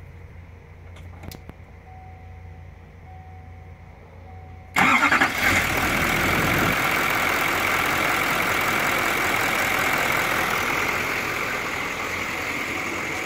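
Duramax LML 6.6-litre V8 turbodiesel being started about five seconds in: it catches at once with a loud burst and settles into a steady idle. A few faint short beeps come before the start.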